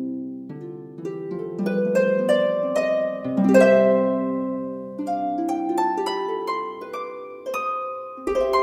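Background music: plucked string notes and chords in a slow melody, each note starting sharply and ringing away.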